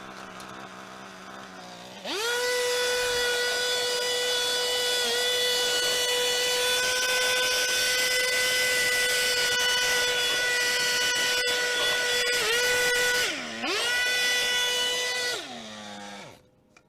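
Leaf blower running. It speeds up to a steady high whine about two seconds in, dips briefly near the end, then winds down and stops.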